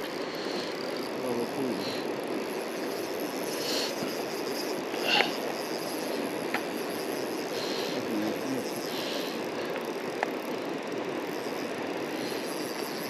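Steady rush of a fast-flowing river current, with a few faint clicks.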